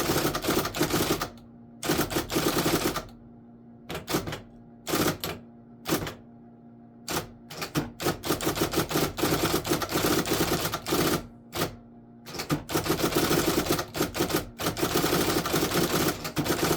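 IBM Selectric Correcting II electric typewriter being typed on: runs of rapid keystrokes, the type ball striking the paper, broken by short pauses. Its motor hums steadily underneath.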